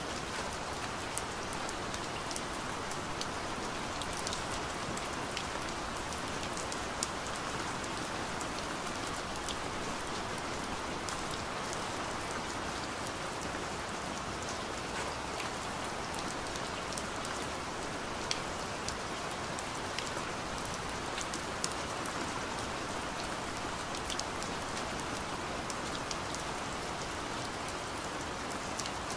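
Steady rain: an even hiss with scattered sharp ticks.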